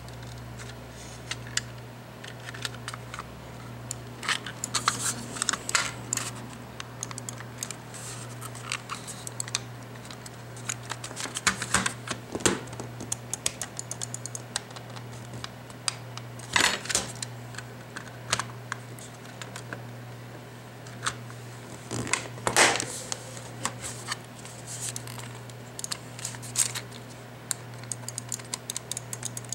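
Logitech G500s gaming mouse being handled and pressed: irregular small plastic clicks and taps from its shell and buttons, with a few louder clacks, over a steady low hum.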